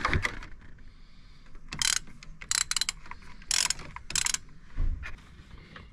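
Hand ratchet with an E12 Torx socket clicking in several short bursts as it backs out the bolt holding an air-conditioning line fitting.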